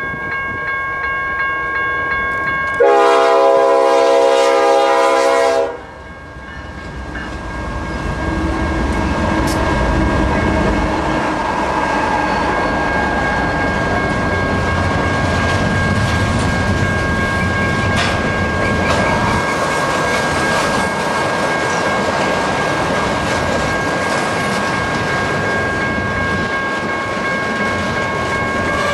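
BNSF intermodal freight train's locomotive horn sounds one long blast, about three seconds long, a few seconds in. The locomotives and double-stack container cars then roll past with a steady rumble of wheels and clickety-clack. A grade-crossing bell rings steadily throughout.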